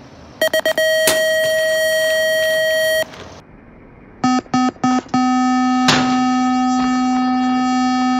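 Electronic BMX start-gate cadence: a few short beeps, then a long held tone, played twice. The second sequence is lower in pitch and carries a sharp clank partway through its long tone, as the gate drops.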